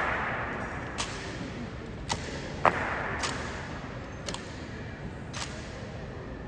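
Sharp clacks and slaps of honor guards' rifle drill, six or so separate hits echoing in a marble hall, the loudest a little under three seconds in.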